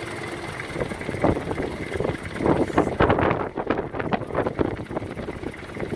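Wind buffeting the microphone over choppy sea water, with irregular splashing and lapping that grows stronger about halfway through.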